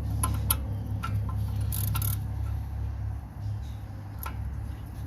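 Scattered light clicks and clinks of hand tools and sockets being handled, over a steady low hum.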